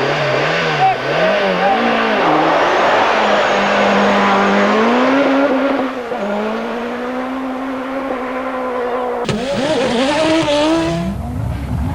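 Group B rally car engine running at high revs, its pitch rising and dropping with throttle and gear changes. About nine seconds in the sound cuts abruptly to another car accelerating.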